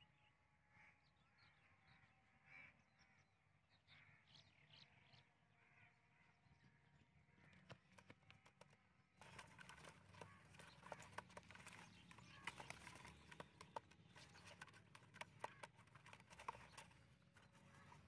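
Faint outdoor bird calls. About halfway through, a busy run of rustling and clicking starts as a pigeon is handled and taken out of a slatted cage trap.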